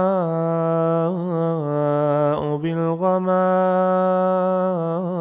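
A man reciting the Quran in slow, melodic tajweed with no accompaniment, holding long drawn-out notes with ornamented turns and a brief break for breath about two seconds in.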